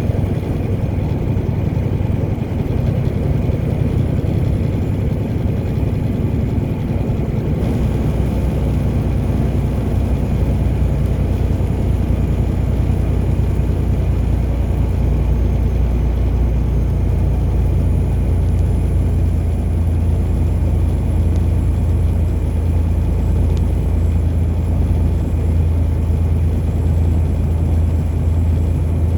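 Steady low rumble of a car driving: engine and tyre road noise, with the low end growing a little stronger about eight seconds in.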